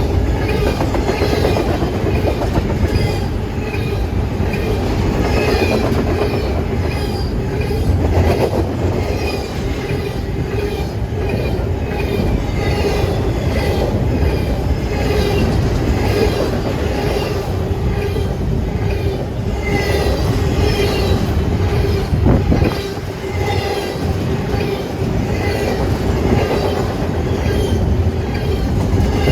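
Train cars rolling steadily past close by: continuous loud wheel-on-rail rumble with clicking over the rail joints and a steady squeal from the wheels.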